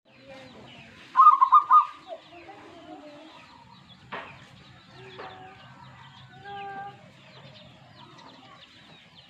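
Zebra dove (perkutut) singing: a loud, quick run of about four clipped beat notes about a second in, running into lower cooing notes, then a softer phrase of held notes around five to seven seconds in. Thin high chirps of other small birds throughout.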